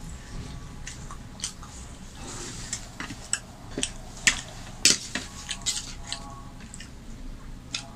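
Metal spoon scraping and clinking against a steel bowl of potato curry, a run of sharp clinks with the loudest about four to five seconds in, followed by a faint metallic ring.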